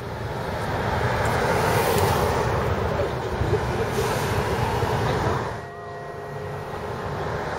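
Street traffic: a car driving past close by, a steady rush of tyre and engine noise that fades about five and a half seconds in. A few steady tones then come in near the end.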